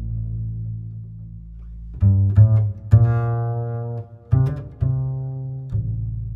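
Background music: slow, low-pitched notes, each struck and left to ring. One note fades over the first two seconds, then new notes come about once a second.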